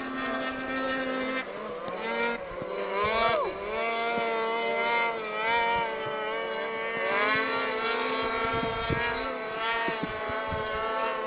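Several racing snowmobile engines whining at high revs at once, each at its own pitch, rising and falling as the sleds speed up and back off. One sweeps sharply up and back down about three seconds in.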